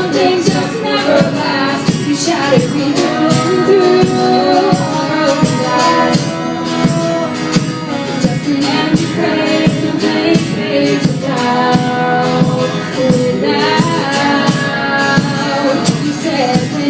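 A band playing a song live, with a steady percussion beat under it and a voice singing long held notes.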